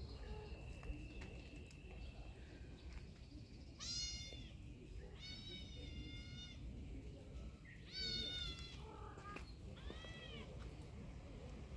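A kitten meowing four times, with high-pitched calls a second or two apart; the second call is long and held.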